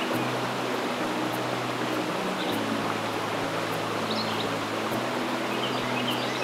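A mountain stream rushing steadily, with a few short bird chirps. Soft background music of long held low notes runs underneath, the chord changing every couple of seconds.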